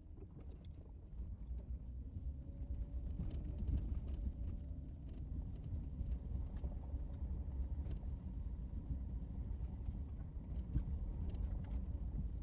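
Four-wheel-drive vehicle driving slowly along a rough dirt trail: a steady low engine and drivetrain rumble with scattered knocks and rattles.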